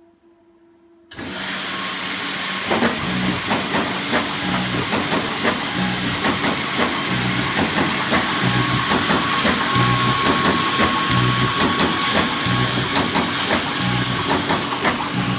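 Binderhaus R50/14-DUO bar creasing machine starting up about a second in, then running with a steady hiss and a low thump about every 1.3 seconds. Each thump is one binding folder being fed, creased with two grooves and punched with two filing slots.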